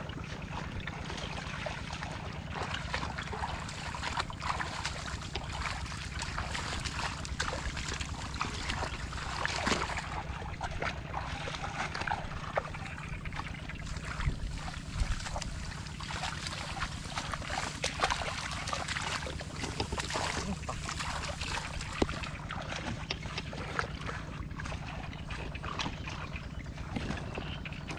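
Shallow muddy paddy water sloshing and squelching as hands grope through the mud and bare feet wade, with many small splashes and crackles throughout. A steady low rumble of wind on the microphone runs underneath.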